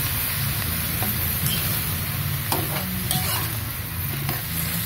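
Noodles with tofu and vegetables sizzling in a wok while a metal spatula stirs and scrapes them against the pan, with a few sharper scrapes in the second half.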